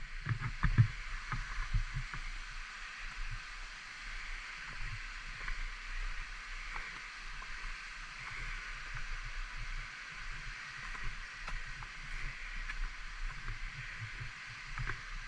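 Steady rush of flowing water, with irregular low rumbles of wind buffeting the microphone.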